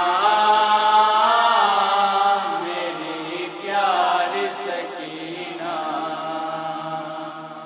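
A male voice reciting an Urdu noha (Shia lament for Sakina), sung in long drawn-out held notes that bend slowly in pitch over a steady low drone.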